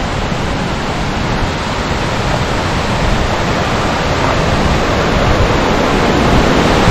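Steady rush of a cascading waterfall heard from the top of its drop, slowly growing louder.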